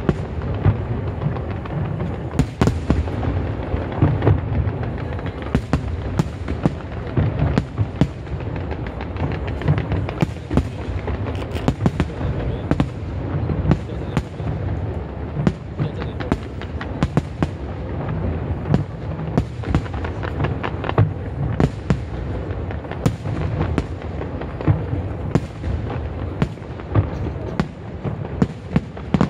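Aerial fireworks display going off continuously: shells bursting in a steady low rumble, with many sharp bangs and cracks scattered throughout.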